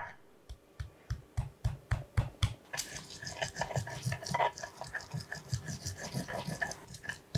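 A stone pestle pounds and grinds fresh garlic and chillies in a wide stone mortar: a quick, even run of knocks and scrapes, about five a second.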